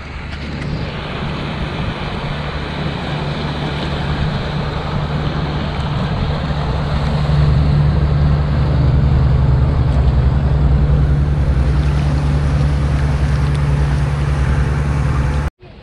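Engine of a passing motor cruiser running with a steady low hum, growing louder over the first several seconds as it comes close, over water noise; it cuts off suddenly near the end.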